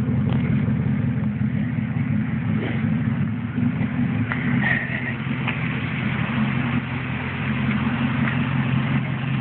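Car engine idling steadily, a low, even hum. A brief high-pitched note sounds about four and a half seconds in.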